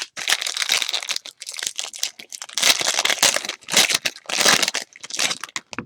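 Plastic or foil wrappers of baseball card packs crinkling and tearing as packs are opened by hand, in irregular bursts of rustling.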